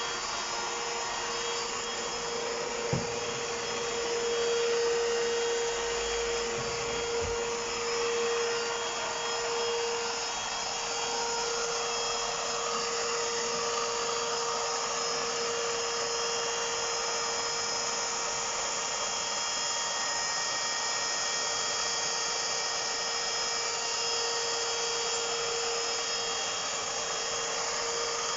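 Vacuum cleaner running steadily, a constant rushing noise with a steady whine, and a short knock about three seconds in.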